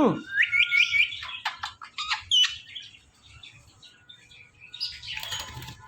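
Ringneck parrot chirping and calling: a quick run of sharp whistled chirps and short pitch glides in the first two and a half seconds, then a brief rustling noise about five seconds in.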